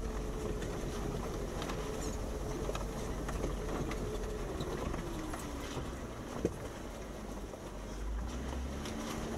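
Jeep Wrangler Unlimited Rubicon's V6 engine running at low revs on a rough trail, its note dipping slightly about halfway, with scattered knocks and clunks from the vehicle.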